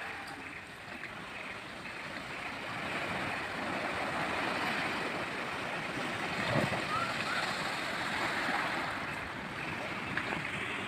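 Sea waves breaking and washing over a coral-rubble beach: a steady surf wash.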